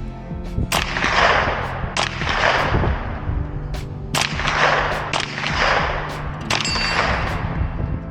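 Shots from a 9mm pistol-caliber carbine fired one at a time about a second apart, each followed by a short echoing tail, over background music.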